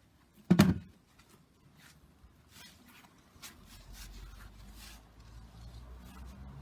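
A single dull thump about half a second in, then faint rustling and scraping of soil and potato plants being dug through by hand.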